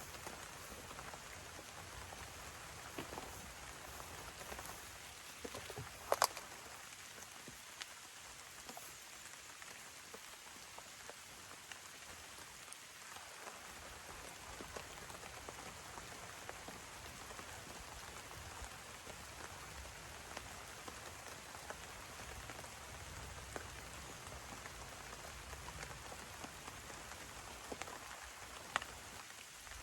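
Steady rain falling, with many small drops ticking throughout. A sharper knock comes about six seconds in, and another near the end.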